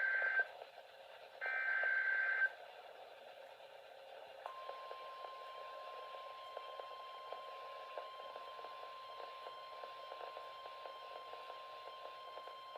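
Emergency Alert System alert opening over weather-radio hiss: the end of one burst and then one full burst of the SAME digital header data tones, each about a second long. About four and a half seconds in, a steady single-pitch warning alarm tone begins and holds, the NOAA Weather Radio alarm that signals a warning message is about to follow.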